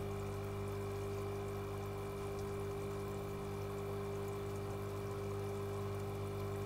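Aquarium aerator running in a fry tank: a steady electric hum with water bubbling and trickling under it.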